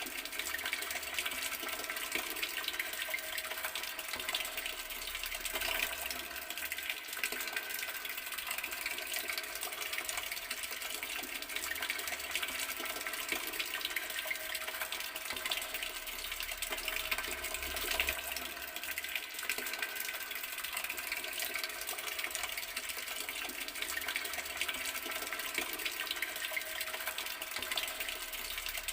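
Garden water tap left running: a steady, unbroken flow of water.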